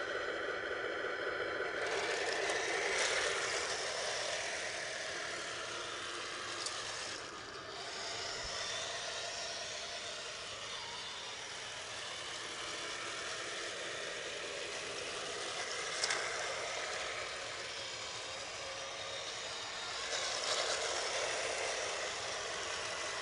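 A 1/16 scale RC M41A3 Bulldog tank's sound unit playing a simulated engine running sound, steady, with a few short clicks.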